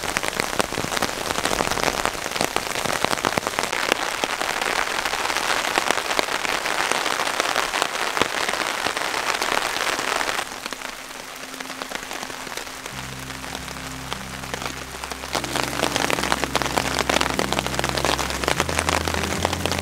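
Steady rain falling, a dense patter of raindrops on the tarp and ground, easing a little about halfway through. From about two-thirds of the way in, background music with low held notes comes in under the rain.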